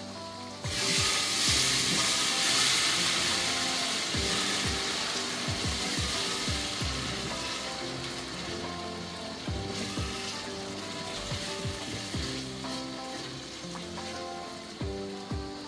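Tomato sauce with sliced onions frying and sizzling in a metal pot while a spoon stirs it, with soft knocks and scrapes of the spoon against the pot. The sizzle turns suddenly louder about a second in, then slowly eases off.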